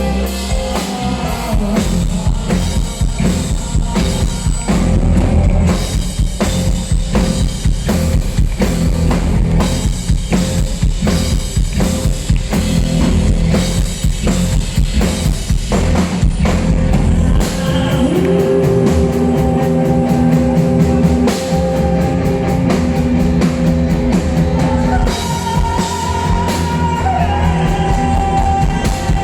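Rock band playing live in an instrumental stretch, with a drum kit beating steadily over bass. About halfway through, a sustained melodic line, likely guitar, comes in above the drums.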